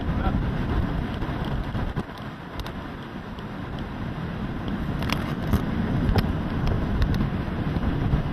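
Hurricane wind buffeting the microphone as a low, gusty rumble, with a few sharp clicks and knocks about two and a half seconds in and again in a cluster between five and seven seconds.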